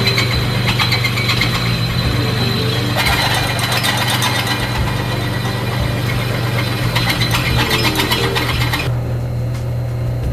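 Benchtop drill press running, its motor humming steadily while the twist drill bit cuts into a steel bracket, enlarging a pilot hole to 1/2 then 5/8 inch. The cutting noise stops about nine seconds in as the bit is lifted, and the motor keeps running.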